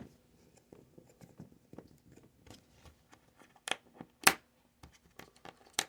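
Small clicks and taps of plastic and metal as a tablet is worked apart by hand, with sharper clicks near the end, the loudest about four seconds in.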